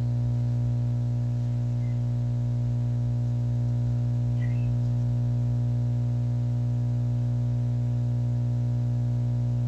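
A steady low-pitched hum: one unchanging low tone with faint overtones, held without a break.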